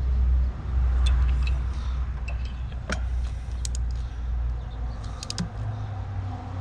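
Scattered sharp metallic clicks of a wrench and socket tightening spark plugs, a few single clicks and then a quick cluster of three or four, over a steady low rumble.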